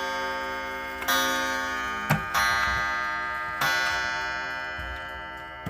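Centurion 35-day spring-driven wall clock striking: its hammer hits the chime three times about a second and a quarter apart, each stroke ringing and slowly dying away, over the ticking of the movement.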